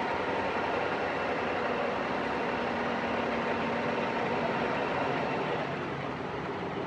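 Diesel engine of a wooden Dubai Creek abra (water taxi) running steadily, heard from on board, easing off slightly near the end.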